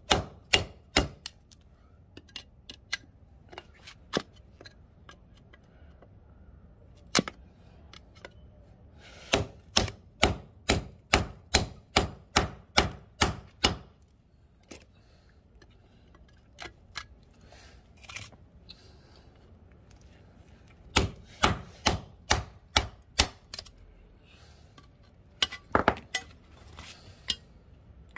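Hammer blows on a slotted steel angle bracket used as a makeshift chisel, driving it into a transformer's winding to cut out the copper. Sharp metallic strikes come in runs, the longest about ten blows at roughly two a second, with pauses between the runs.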